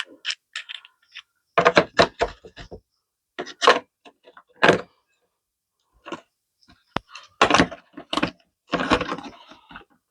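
A carbide-tipped hole saw set being handled: the metal hole saws and arbors knock and click in several short irregular clusters, with one sharp click about seven seconds in.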